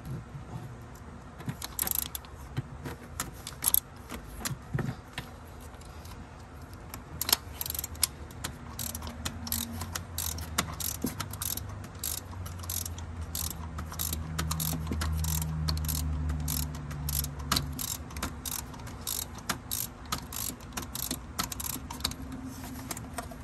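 Ratchet wrench clicking as it is worked back and forth on an extension to loosen a tight spark plug: a few scattered clicks at first, then quick runs of several clicks a second for the rest of the time.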